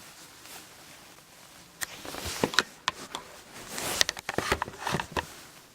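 Handling noises: a run of clicks, knocks and rustling starting about two seconds in, as something is picked up and moved around.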